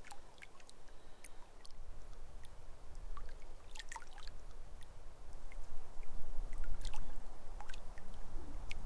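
Small waves lapping and trickling against the lake shore, in scattered little splashes and clicks. A low rumble builds underneath from about halfway through.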